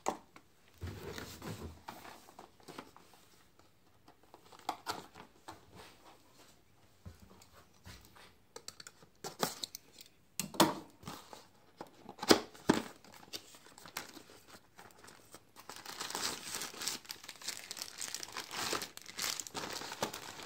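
Packaging being handled: plastic bags crinkling and cardboard rustling and sliding, with a few sharp knocks about ten to thirteen seconds in. The rustling gets denser and steadier over the last few seconds.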